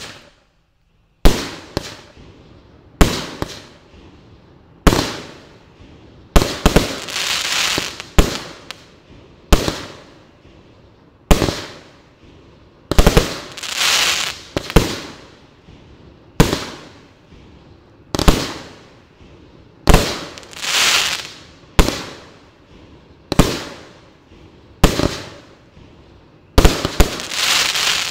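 A 36-shot consumer firework cake firing its shots one after another, a sharp bang roughly every one and a half to two seconds. Several bangs are followed by about a second of crackling hiss from the star breaks.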